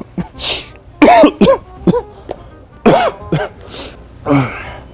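A man's loud, exaggerated fake sneezes and coughs in a string of short bursts, with swooping vocal wind-ups between breathy blasts.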